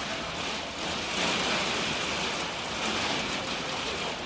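Violent windstorm with heavy rain: wind-driven rain beating down in a dense, steady hiss.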